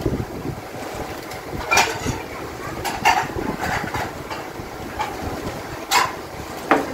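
An engine running steadily with a low rumble, broken four or five times by sharp clicks and knocks from kitchen work.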